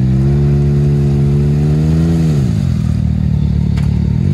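Can-Am Maverick X3 side-by-side's three-cylinder engine held at steady revs as it works through deep mud, the revs falling off about halfway through and starting to rise again near the end.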